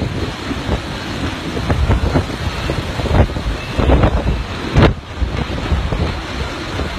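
Typhoon wind gusting hard and buffeting the microphone, over the rush of storm-surge water churning and breaking. The gusts hit in heavy swells several times.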